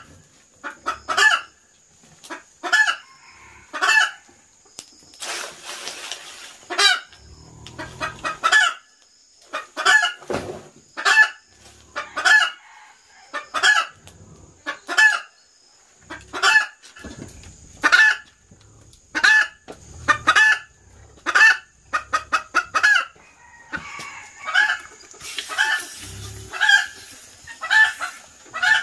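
A chicken calling over and over in short clucks, about one a second, some coming in quick runs. A steady high whine runs underneath, and a brief rush of noise comes twice, about six seconds in and again about twenty-six seconds in.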